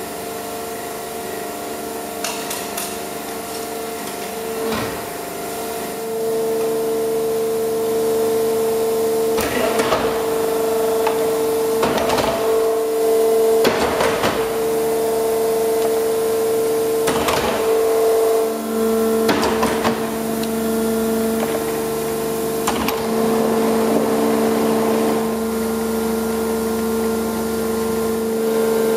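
Hydraulic pump on an Eaton Leonard VB75 CNC tube bender running with a steady hum, with a lower tone joining about two-thirds of the way through. Sharp metallic knocks come every few seconds.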